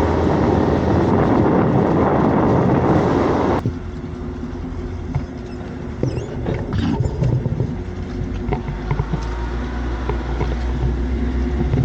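A 4x4 off-road vehicle's engine running while driving. A loud, noisy first few seconds cut off abruptly, then a steadier low engine hum with scattered knocks and rattles.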